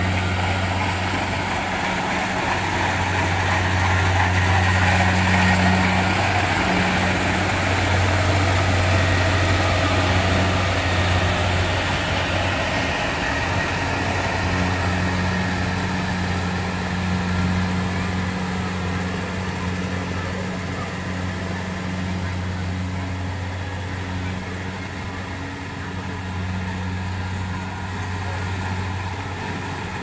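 Kubota combine harvester's diesel engine running steadily with a low hum, under the noise of its cutting and threshing gear as it harvests rice. The sound grows fainter in the second half as the machine moves away.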